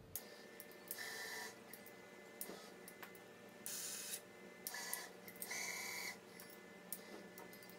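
Robot arm's motors whirring in about four short bursts, with scattered clicks, as the arm moves to pick up a block and carry it.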